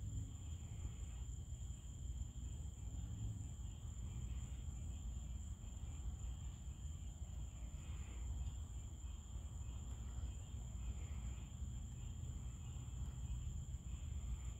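Night chorus of crickets: a steady, unbroken high-pitched trill, over a low rumble.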